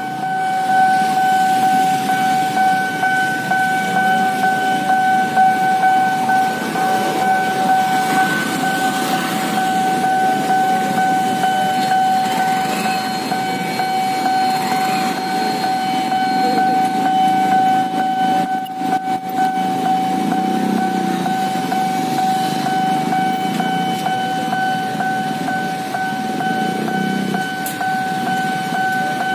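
Railway level-crossing warning alarm sounding one continuous high electronic tone while the crossing is closed, over the idling engines of motorcycles and cars queued at the lowered barrier.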